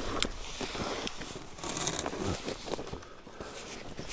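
Irregular crunching and scuffing of snowshoe steps in snow.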